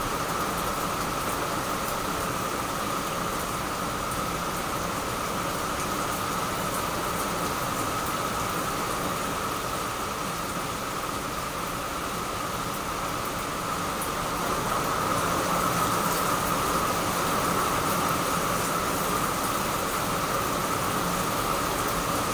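Steady rain falling on a garden of potted plants and leaves, an even hiss that grows a little heavier about two-thirds of the way through.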